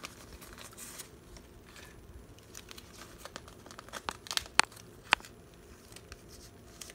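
Clear plastic photocard binder sleeves crinkling and rustling as a round photocard is slid into a pocket, with a few sharp clicks about four to five seconds in.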